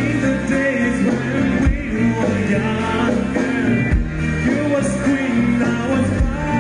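Live band playing a song, with acoustic guitar, electric bass and electric guitar under a man singing.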